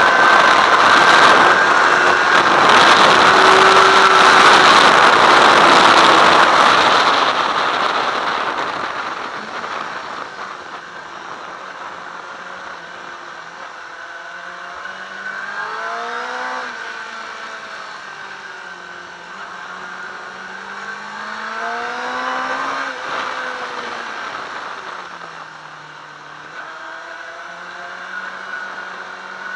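Onboard sound of a sport motorcycle on a race track. For the first several seconds the engine is at high revs under loud rushing wind noise. The level then drops as the throttle is closed, and the engine note rises and falls through gear changes and corners for the rest.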